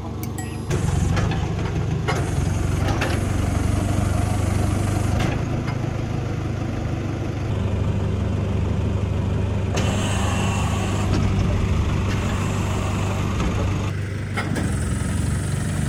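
Garbage packer truck's diesel engine running steadily, stepping up in level about a second in. The rear compactor stays still: the packer has broken down.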